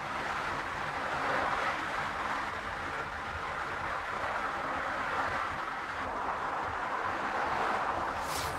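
Steady driving noise of a car on the road: tyre and wind rush with a low engine hum underneath. A brief whoosh comes near the end.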